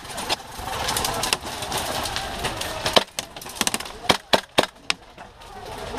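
Airsoft guns firing in a woodland skirmish: a handful of sharp single cracks from about halfway through, over faint background voices.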